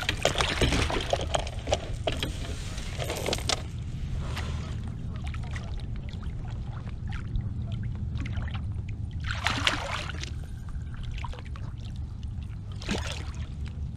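Water splashing beside a kayak as a hooked catfish thrashes at the surface, in bursts at the start, about ten seconds in, and near the end.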